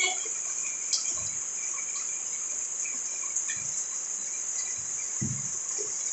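Steady high-pitched chorus of insects, unbroken throughout, with a few soft low thumps, the strongest about five seconds in.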